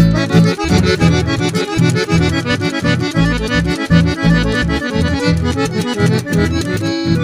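Instrumental break between the sung verses of a song: band music with a melody line over a steady bass beat, no singing.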